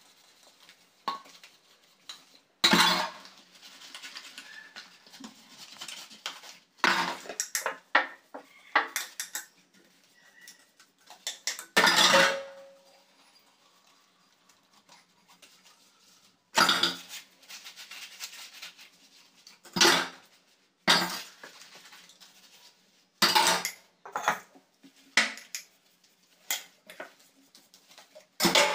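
Stainless-steel pots, bowls and plates clanking and clattering as they are washed by hand and set down in a steel sink. The clatters come in irregular bunches with quiet gaps between, and one about twelve seconds in rings briefly.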